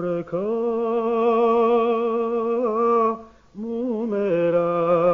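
A man's voice singing an Armenian folk song unaccompanied, holding long wavering notes. It breaks for a breath about three seconds in, then goes on into the next phrase.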